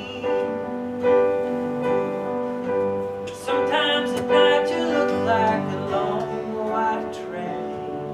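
Piano accompaniment playing slow, held chords of a ballad.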